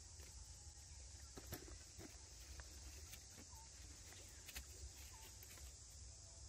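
Faint outdoor ambience: a steady high insect hiss, with scattered soft taps and scuffs of macaques scrambling over stone blocks and dry leaves, and a faint short chirp recurring every second or two.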